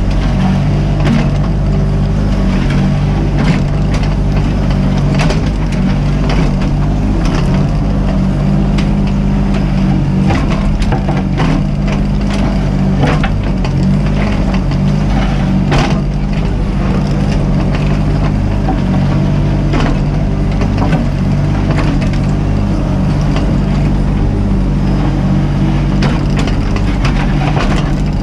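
Mini excavator's diesel engine running steadily under work, with frequent sharp knocks, cracks and scraping from the bucket digging.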